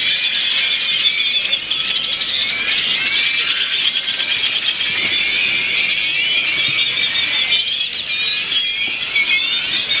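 A dense flock of birds chirping loudly in the trees: countless short, rising chirps overlapping into one unbroken chorus.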